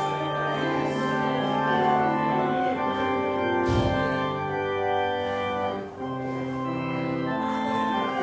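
Organ postlude: slow, sustained chords that change every couple of seconds. A brief low thump sounds a little before the middle.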